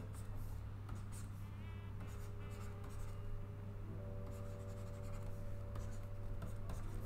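Plastic stylus scratching and tapping on a pen-display drawing tablet as short lines are drawn, in irregular strokes over a steady low hum and soft held tones.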